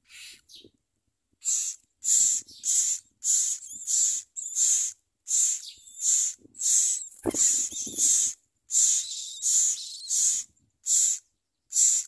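Common myna nestlings begging for food: short, harsh, hissing calls about twice a second, starting about a second and a half in. A brief low rustle sounds about seven seconds in.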